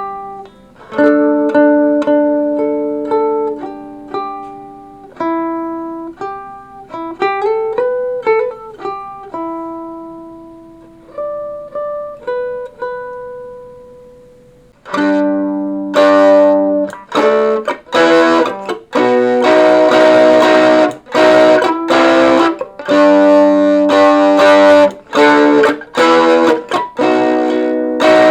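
An amplified plucked string instrument played through a small Acorn Amps Biz Card amplifier and an old speaker in a box. For about fifteen seconds it plays picked single notes and chords with a few slides, letting notes ring out. From there on it plays loud strummed chords.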